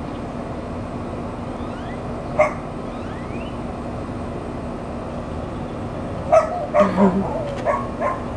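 Short animal calls: a single one about two seconds in and a quick run of several near the end, over a steady low hum.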